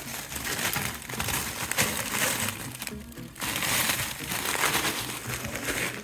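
Background music under a loud, rustling, crinkling noise that drops out briefly about three seconds in.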